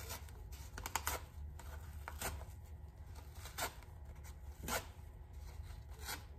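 Glued-on foam pre-filter being peeled off a pleated paper drop-in air filter: faint scratchy tearing and rustling, several short rips spread through the few seconds.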